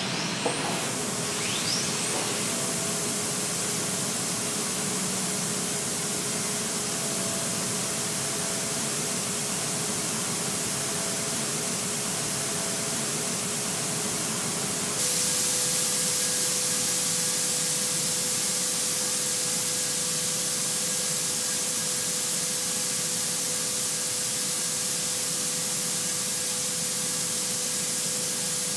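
Steady hiss of a robotic car-body paint booth, paint spray and air rushing, with a faint steady hum under it. About halfway through the hiss gets louder and the hum shifts a little higher in pitch.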